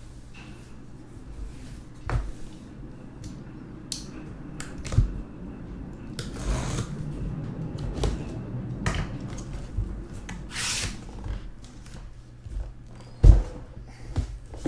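Cardboard shipping box handled and knocked on a table, with a utility knife slicing through the packing tape in two scraping strokes. A heavy thump near the end as the box is opened.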